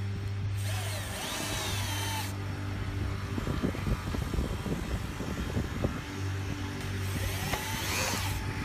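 Cordless drill/driver driving small screws through a steel concealed hinge into a wooden cabinet door, its motor running in short runs, with clicks of the bit and screws in the middle of the clip.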